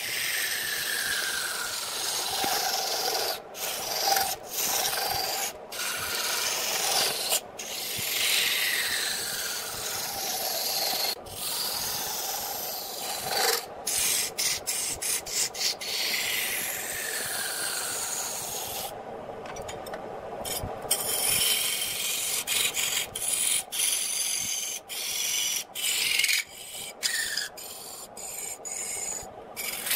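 A gouge cuts a spinning wood blank on a lathe: a continuous rough scraping hiss as thick shavings peel off. It is broken by many brief gaps as the tool lifts off, with a whistling tone that slides downward now and then as the cut moves along.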